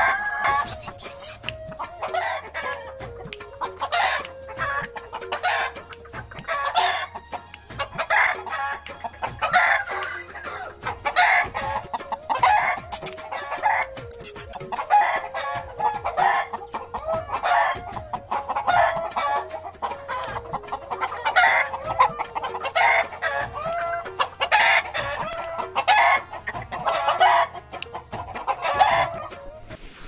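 Chickens clucking and roosters crowing, short calls following one another about every second.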